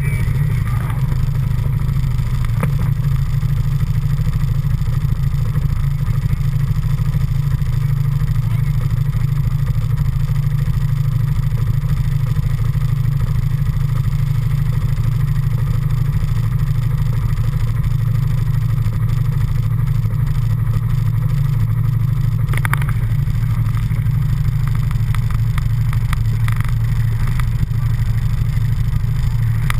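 ATV engine running steadily at low revs, an even low rumble that does not rise or fall, with a brief knock a few seconds in and another about three-quarters of the way through.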